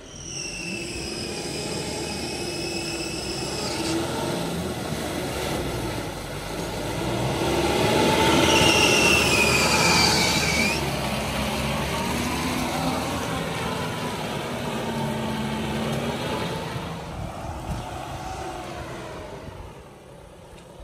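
Mahindra Bolero pickup's diesel engine revving up and down as the truck churns through deep mud, its tyres slopping in the ruts. The sound swells to its loudest as it passes close about ten seconds in, with a high whine that drops in pitch as it goes by.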